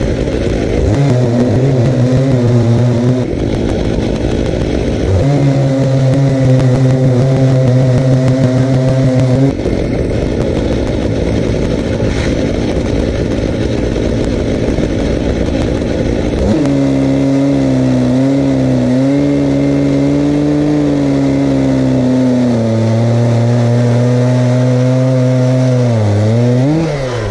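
Two Stihl MS880 two-stroke chainsaws on a double-ended chainsaw mill, revved twice in short full-throttle bursts, then held at full throttle for a long stretch as the bar cuts into the log, the engine pitch sagging a little under load near the end.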